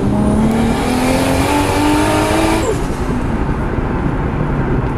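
Turbocharged car engine accelerating hard, its pitch rising. About two and a half seconds in the throttle closes, and the engine tone gives way to a rough, fluttering chatter of turbo flutter.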